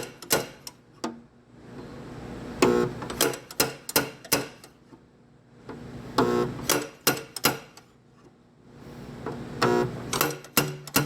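Hammer strikes on a car's sheet-metal quarter panel, each blow ringing briefly. They come in groups of three or four, about two a second, with short pauses between, as a dented crease is worked out.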